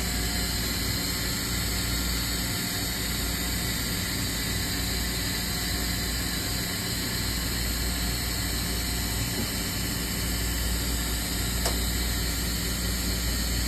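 OKK VP9000 CNC vertical machining center running, a steady mechanical hum and hiss with a few constant tones over a low drone.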